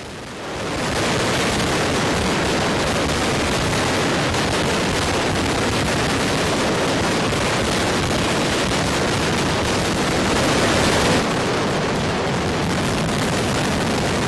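Traditional-style mascletà: strings of firecrackers detonating in a dense, unbroken volley, the bangs blurring into one continuous rattle. It swells to full strength about a second in and holds there.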